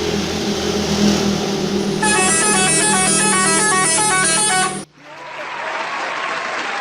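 A bus engine idles, then the bus's multi-tone 'telolet' musical horn plays a fast melodic run of stepping notes for about three seconds. The horn cuts off abruptly into a steady noisy din.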